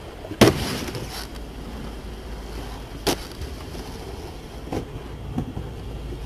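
Skateboard on concrete: a loud clack about half a second in as the board lands from the drop off the wall, then the wheels rolling with a low rumble, broken by another sharp clack about three seconds in and a couple of lighter knocks near the end.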